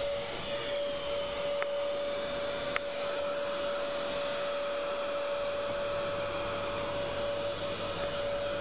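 Audio-driven multilayer coil water heater sounding a steady single tone over a constant rushing noise, with two faint ticks in the first three seconds.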